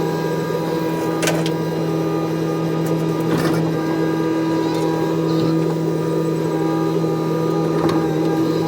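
Excavator's diesel engine running at a steady speed while the machine digs and loads soil, with two sharp knocks, about one and three and a half seconds in.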